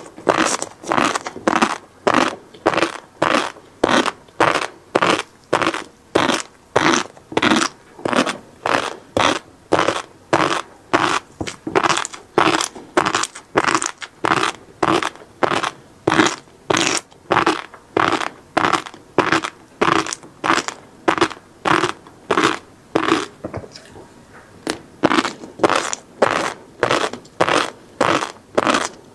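Close-miked chewing of flying fish roe: crisp, crunchy popping of the eggs with each bite, in an even rhythm of about two chews a second, broken by one short pause about three-quarters of the way through.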